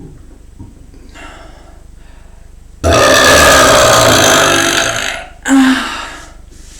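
A person belching air they have gulped down: one long, loud belch lasting about two seconds, then a shorter belch right after it.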